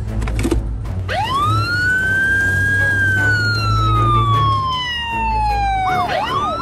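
Police siren: one long wail rises about a second in and then slowly falls, switching to fast up-and-down yelps near the end.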